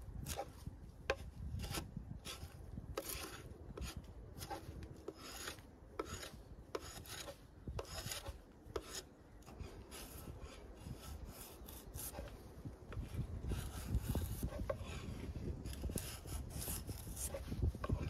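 Drawknife pulled along a log, shaving off bark in a series of short scraping strokes, about one or two a second.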